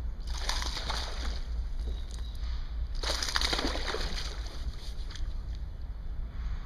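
A hooked fish thrashing and splashing at the surface beside a kayak: two strong bursts of splashing about three seconds apart, then a smaller one, over a steady low rumble.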